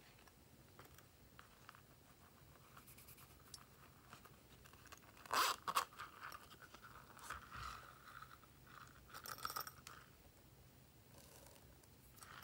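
Small plastic case being handled and opened. There are a few sharp clicks about five and a half seconds in, then stretches of scraping and rustling as small plastic sprinkles are shaken out of it onto the slime.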